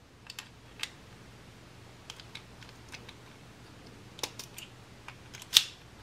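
Small metallic clicks and taps from handling a Honda ignition lock cylinder, with its key inserted, and its housing. The clicks come irregularly, some in quick pairs, the loudest a little over five and a half seconds in.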